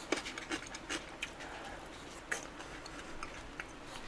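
Close-miked chewing of a mouthful of soft chicken and scorched-rice porridge: irregular mouth clicks and smacks, several a second.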